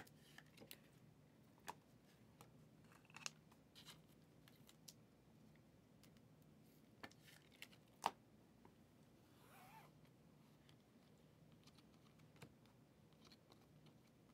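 Near silence: room tone with a faint low hum and a few scattered faint clicks and taps, the sharpest about eight seconds in.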